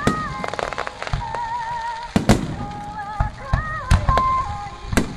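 Starmine finale of firework shells bursting in quick succession, repeated booms and crackles throughout, over the sung theme song the display is choreographed to.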